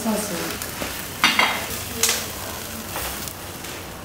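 Food sizzling as it cooks, with two sharp clicks: the louder about a second and a quarter in, the other about two seconds in.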